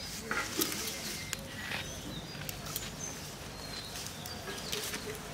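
Small birds chirping now and then, with short rustles and snaps of neem leaves and flower stalks being picked by hand.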